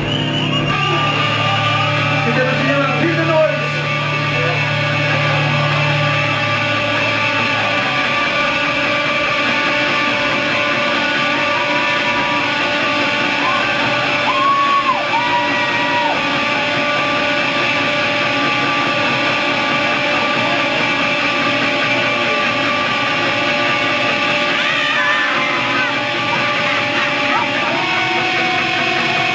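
A rock band's live concert intro: sustained droning tones and held notes with no steady beat. A low drone fades out after the first several seconds, and a held tone steps up in pitch near the end.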